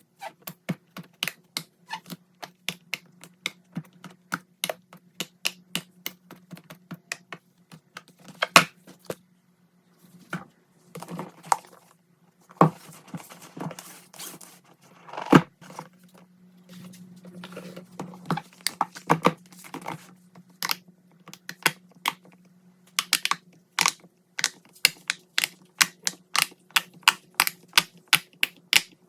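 Fidget toys being clicked and popped in quick succession, about three to four sharp clicks a second, with a stretch of rustling handling noise in the middle. A low steady hum runs underneath.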